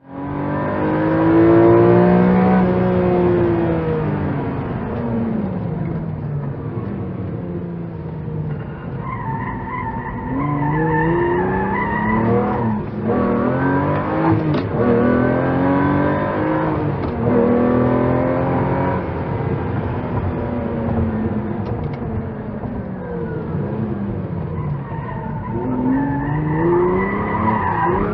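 Lamborghini supercar engine revving and accelerating over and over, its pitch sweeping up and falling back in long swells. About a third of the way in, a higher steady squeal runs over it for a few seconds.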